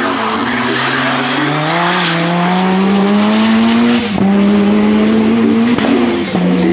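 Racing VW Polo's engine accelerating hard under full load, its pitch climbing for about four seconds, then holding steady at high revs after a short break.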